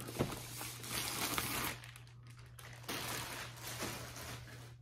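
Clear plastic wrapping bag crinkling as a cardboard box is slid out of it and the bag is handled, in two stretches: a longer rustle at the start and a shorter one about three seconds in.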